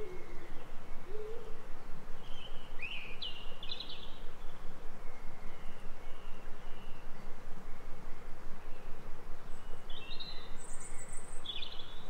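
Forest ambience: a couple of low hooting bird calls at the start, then scattered short chirps of small birds, over a steady hiss with a fast, even pulsing.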